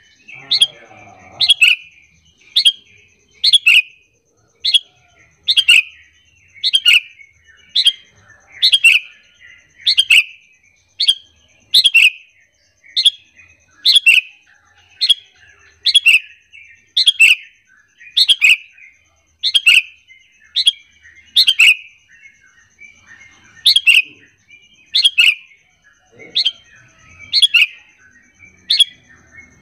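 Sooty-headed bulbul (kutilang) calling: short, sharp notes repeated about once a second, with a brief pause about two-thirds of the way through. It is a lure call, played to get other bulbuls to answer and sing.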